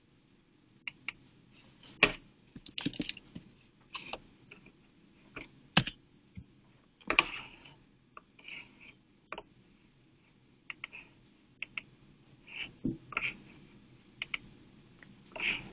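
Irregular clicks and taps of a computer keyboard and mouse as a short name is typed into a search box and a button is clicked.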